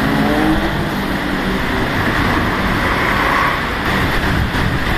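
Distant fireworks display going off as a dense, steady rumble, with no single bang standing out.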